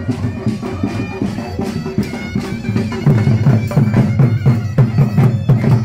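Live folk music for bhangra dancing: a fast drum beat under a wind instrument holding long high notes. The drumming grows louder about three seconds in.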